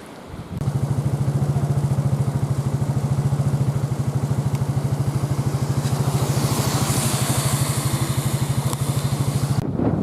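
An engine idling steadily with a fast, even pulse, starting about half a second in and cutting off sharply near the end. Wind and rain hiss swells behind it in the second half.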